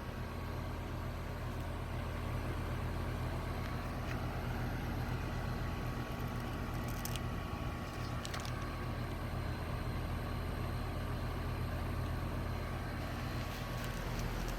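Goodman air conditioner unit running with a steady low hum, its fan blade turning without squeaking. A couple of faint ticks come through in the middle.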